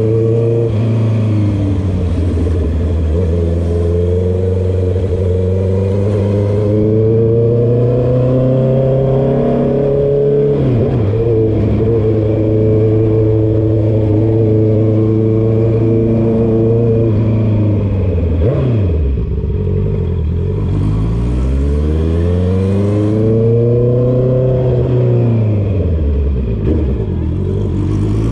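Honda CB650R's inline-four engine through a straight-through full exhaust with the dB killer removed, very loud, ridden on the road. The engine note climbs and drops with throttle and gear changes, holds steady for several seconds in the middle, then falls away sharply and rises and falls again toward the end.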